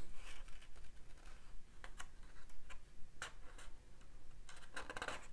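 Pages of a thin stapled paper booklet being turned by hand: a few short, irregular paper flicks and soft rustles, with a slightly longer rustle near the end.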